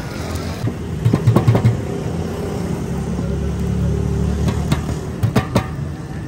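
A motor vehicle's engine running close by, a low rumble that builds about a second in and eases near the end. A few sharp knocks come through about a second in and again near the end.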